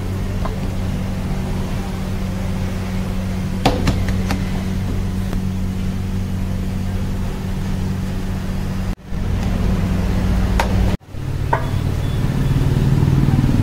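A steady low mechanical hum with a few sharp clicks over it. The sound drops out abruptly twice, about nine and eleven seconds in, and after the second break the hum comes back fuller and a little louder.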